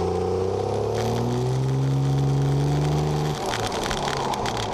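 Pickup truck's engine and exhaust accelerating, heard close up from under the truck beside the rear axle and muffler. The engine note climbs steadily, then drops suddenly and turns rougher about three seconds in.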